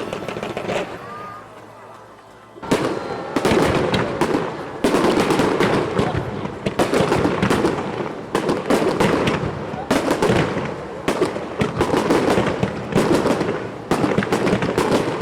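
Fireworks crackling and banging. The crackle fades about a second in, then after a short lull a dense barrage of sharp cracks and booms starts and keeps going.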